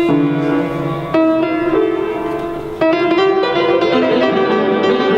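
Instrumental music: a few struck chords that ring on, then a quicker run of notes about three seconds in.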